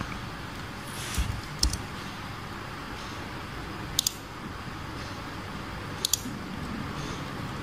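Clicks of a computer mouse and keyboard over a steady hiss: a couple about a second in, then quick double clicks at about four and about six seconds.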